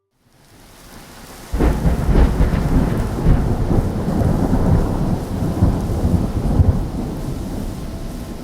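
Roaring fire sound effect: a faint rise, then a sudden low rumbling burst of flame about a second and a half in, followed by a dense crackling roar that eases slightly near the end.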